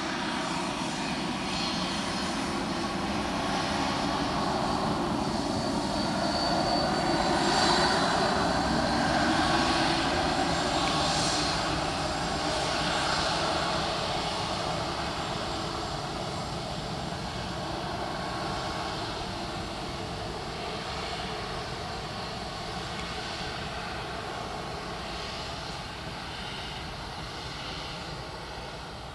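Jet airliner landing and rolling out along the runway: a steady engine roar that swells to its loudest several seconds in, then slowly fades as the aircraft slows.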